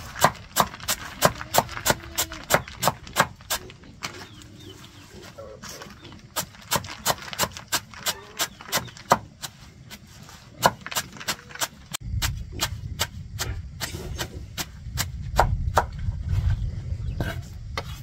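Sharp knocks or chopping strikes repeated at about three a second, in several runs with short pauses between. About two-thirds of the way in, a low rumble joins them.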